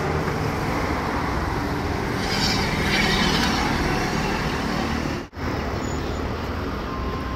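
Engine and road noise of a coach bus driving past close by, over steady traffic noise, with a stretch of hiss about two and a half seconds in. The sound cuts out for a moment about five seconds in.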